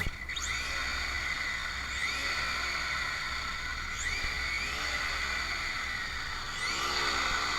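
Brushless electric motor of an Arrma Senton RC truck whining up in pitch four times, about every two seconds, over a steady hum.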